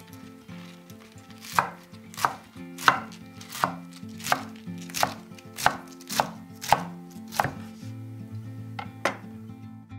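Chef's knife chopping black kale (cavolo nero) on a wooden cutting board: about ten sharp, even chops, a little faster than one a second, then two lighter chops near the end.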